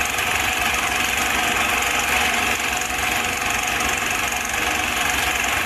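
A small machine running steadily with a dense, even mechanical clatter.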